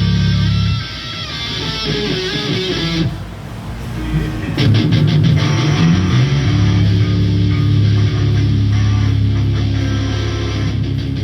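Rock band playing at a sound check: electric guitar and bass guitar, with a thinner, quieter stretch about three seconds in before the full band comes back in.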